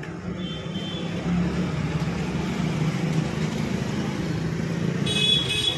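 A motor vehicle's engine running close by: a low rumble that swells about a second in and holds. A brief high-pitched tone comes near the end.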